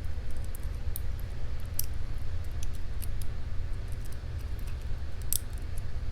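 Light metal clicks and ticks of a lock pick and tension wrench working in a padlock's keyway, scattered irregularly, over a steady low rumble.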